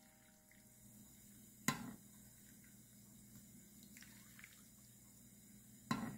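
Hot anchovy broth being poured faintly into a ceramic bowl of rice and toppings, with two brief sharp clicks, about two seconds in and again near the end.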